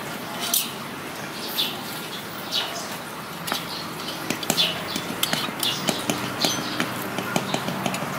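Light metallic clinks and ticks of steel spokes being threaded through a motorcycle wheel's hub and rim, coming more often in the second half, with short high chirps about once a second.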